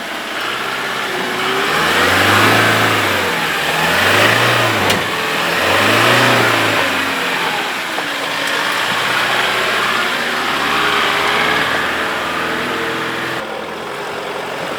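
4WD vehicle engine revving hard under throttle in three surges about two seconds apart, then running on more steadily as the vehicle works through a tough section of off-road track.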